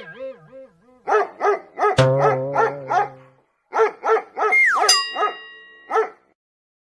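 A dog barking in a quick run of short, evenly spaced yips, about two to three a second, over music, with a tone sliding down in pitch near the end.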